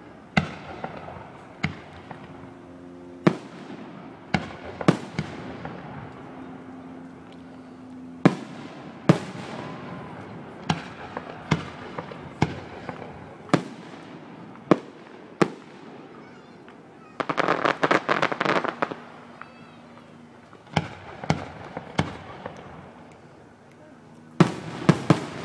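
Fireworks display: aerial shells bursting in sharp bangs every second or so. About 17 seconds in comes a two-second run of dense crackling, and near the end a quick cluster of bangs.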